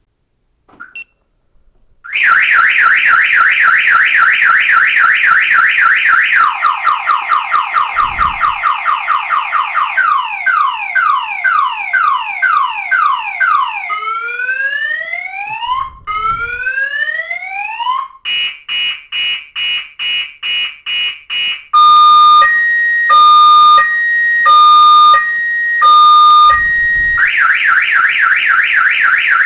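Viper 5900 aftermarket car alarm siren sounding, cycling through its tones: a fast high warble, a lower fast warble, rising whoops, longer rising sweeps, rapid even beeps, a slow two-tone hi-lo, then back to the fast warble. It is loud.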